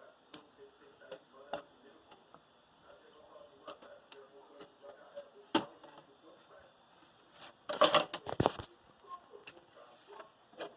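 Scattered light clicks and taps, with a short burst of clattering about eight seconds in.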